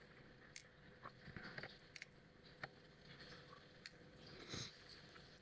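Faint handling of small parts from a disassembled lock cylinder: a few light clicks and soft rustling as the pins and springs are moved about.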